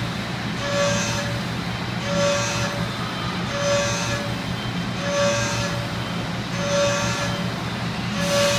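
Machine tool high-speed cutting 15-5 stainless steel: a steady low running hum, with a ringing tone and hiss that come back about every second and a half as the cutter bites on each pass.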